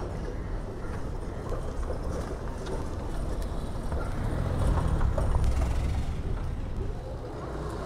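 Street traffic: a motor vehicle's low rumble swells as it passes close, loudest about five seconds in, then eases off.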